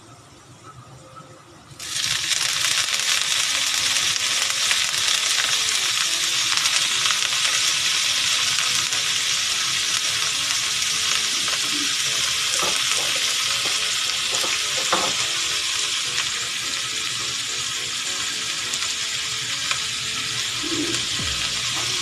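Garlic and cut dragon chives (Chinese chives) frying in hot oil in a wok: a loud, steady sizzle that starts suddenly about two seconds in, with a few light knocks later on.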